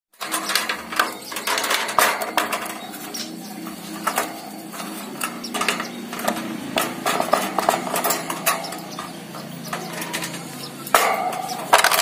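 Wire bird cage being handled and moved about: irregular clicks, taps and light metallic rattles from its bars and base, with a denser cluster of knocks near the end.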